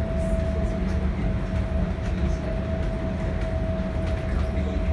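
Bukit Panjang LRT C801B train running along the guideway, heard from inside the car: a steady rumble with a constant, unchanging whine on top.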